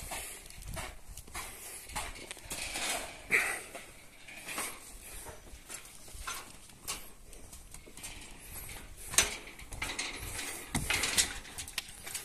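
Footsteps and knocks on a wooden pier's grated walkway, with clunks and clatter from a small sailing yacht's deck and gear as it is boarded and worked on. A few sharper knocks stand out, about three seconds in and again near nine and eleven seconds.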